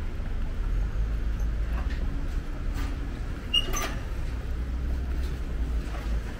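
Outdoor street ambience: a steady low rumble, with scattered light clicks and one sharper click with a brief ring about halfway through.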